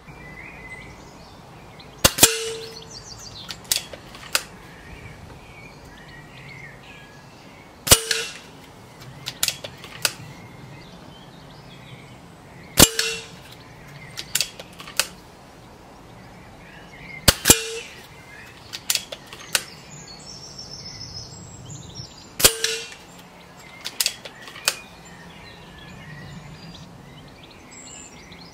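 Daystate Wolverine R .177 pre-charged pneumatic air rifle at 12 ft-lb, fired five times about every five seconds. Each shot is a sharp crack with a brief ring, followed a second or two later by a couple of lighter clicks as the side lever is cycled to load the next pellet.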